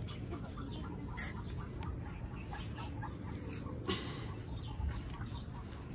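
Poultry calling in the background, many short scattered calls, with a couple of sharp clicks about a second in and again near four seconds.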